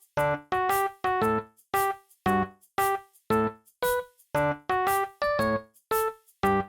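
Background music: a bouncy piano-like keyboard tune of short, detached chords and notes, about two a second.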